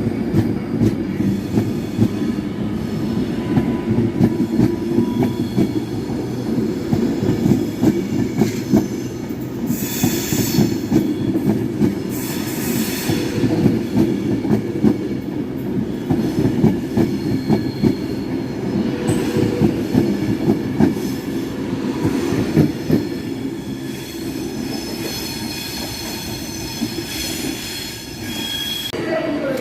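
A train running through on the rails, its wheels clicking rapidly over joints and pointwork, with brief high wheel squeals several times.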